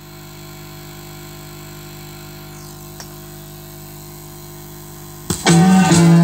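Vinyl 7-inch single played on a turntable: steady surface hiss and hum from the stylus in the lead-in groove, with a single faint click about three seconds in. A little over five seconds in, the song's instrumental intro starts loudly.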